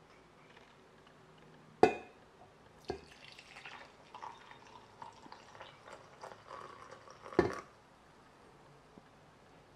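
Coffee poured from a glass carafe into a ceramic mug: a sharp clink about two seconds in, then the splashing pour for about four seconds, ending in another loud clink.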